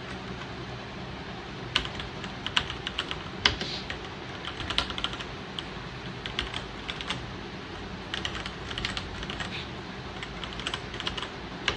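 Typing on a Royal Kludge RK R87 hot-swappable mechanical keyboard: irregular clacking keystrokes that begin about two seconds in, over a steady low hum.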